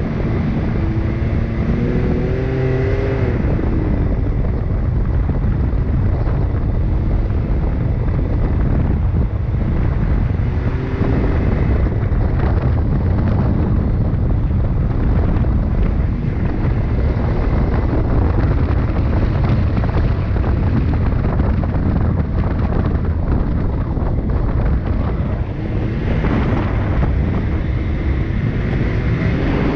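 Side-by-side UTV's engine running hard while driving over sand dunes, heard from inside the open cockpit, with a deep, steady rumble. The engine revs up in the first few seconds and again near the end.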